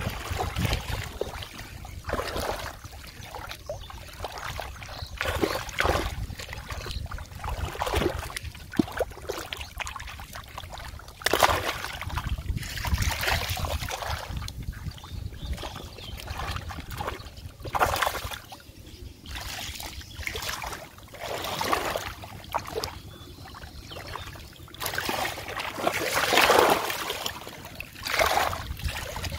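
Shallow flooded-paddy water splashing in irregular bursts as hands grab at a struggling fish, with the loudest splashes about eleven seconds in and near the end, over a steady low rumble.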